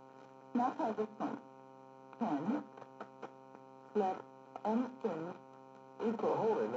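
Low-fidelity digitised film soundtrack played back by a TRS-80 Model I, with a steady buzzing electrical hum under it. Short bursts of gliding, voice-like sound come about a second in, after two seconds, around four to five seconds in and near the end.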